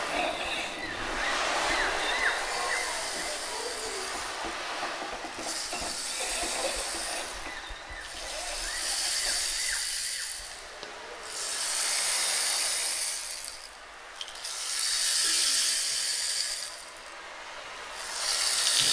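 Home-made sound effects for a steamship at sea: a long hiss that swells and fades, repeated about every three seconds from about five seconds in, after a few seconds of softer mixed sounds with short whistling glides.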